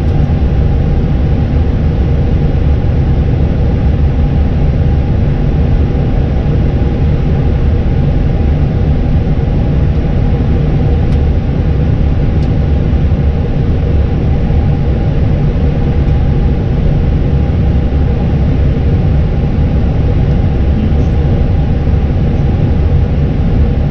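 Steady cockpit rumble of an Airbus A320 taxiing and turning onto the runway for departure, with faint steady hums over it.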